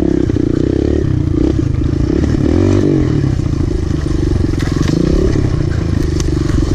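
Kawasaki KLX pit bike's small single-cylinder four-stroke engine running hard under the rider, revs rising and falling with the throttle over a bumpy dirt trail, heard from on the bike. A few sharp rattles come through in the second half.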